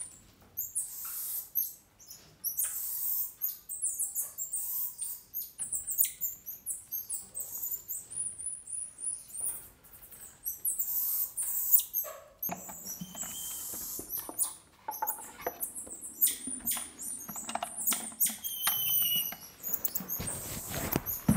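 Emperor tamarins giving many short, very high-pitched chirps and squeaks, with short clicks and scratching sounds among them.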